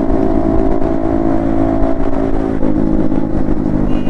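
Yamaha MT-15 V2's 155 cc single-cylinder engine with an Akrapovic exhaust, running steadily under way, its pitch dropping about two and a half seconds in. Wind rumbles on the helmet camera's microphone.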